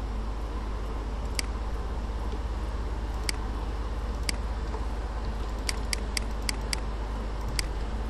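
Computer mouse clicking: about nine sharp single clicks, scattered at first, then a quick run of five about six seconds in. Under them a steady low hum.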